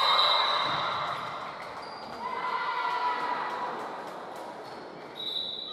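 Spectators cheering and shouting during a volleyball rally in an echoing gym, in two swells: a loud one at the start and a smaller one about two and a half seconds in. A few sharp ball hits and high squeaks come through on top.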